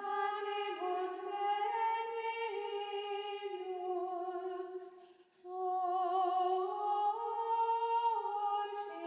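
Soft background music: a slow melody of long held notes that steps up and down, breaking off briefly about five seconds in.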